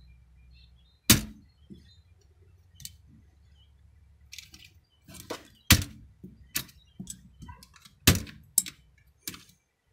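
Plastic keycaps being pulled and snapped off an old Logitech PS2 keyboard by hand: a string of sharp plastic clicks and clacks, loudest about a second in and again near six and eight seconds, coming faster in the second half.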